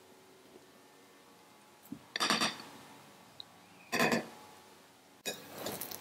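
Silicone spatula scraping and clinking against a glass mixing bowl as thick batter is stirred, in short separate strokes about two seconds in, about four seconds in, and again near the end.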